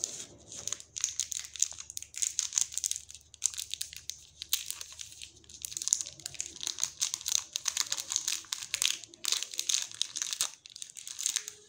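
Amul dark chocolate bar's wrapper being opened by hand: dense, irregular crinkling and rustling of the card pack and the paper and foil inside, with small tearing sounds.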